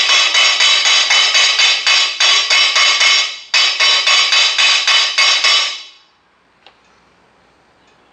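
Chipping hammer rapidly striking off the slag from fresh stick-weld beads on a steel plate: sharp ringing metallic taps, about five a second, in two runs with a short break about three seconds in, stopping about six seconds in.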